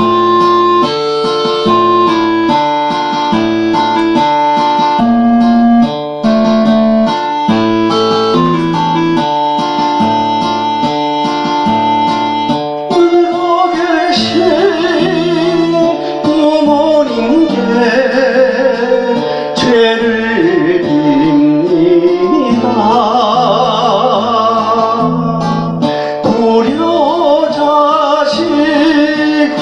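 A song: keyboard and guitar accompaniment plays alone for about the first thirteen seconds, then a singing voice comes in with a wide, wavering vibrato over the accompaniment.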